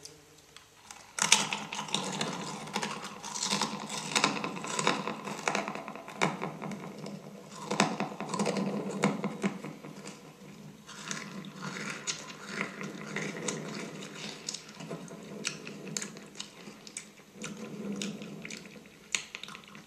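Fortune cookies being chewed and crunched right against a karaoke microphone: a dense, irregular run of amplified crunches that eases off briefly about halfway through.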